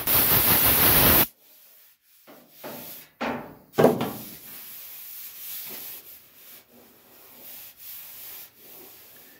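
A loud, even rushing noise that cuts off abruptly about a second in. Then a bare hand rubs and sweeps back and forth over the freshly ground steel of a car's front wing, a dry, irregular swishing with one louder scrape near the middle.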